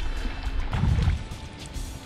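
Background music over a hooked fish splashing and thrashing at the surface beside the boat, loudest in the first second.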